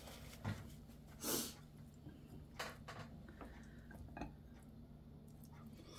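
Quiet mealtime sounds over a low steady hum: a short soft rush of breath-like noise about a second in, then a few light clicks of metal chopsticks against a small bowl.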